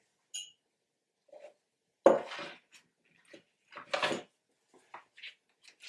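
A glass tealight holder set down on a wooden shelf with a sharp knock about two seconds in, followed by another clatter about two seconds later and small clinks as more items are handled and placed on the shelf.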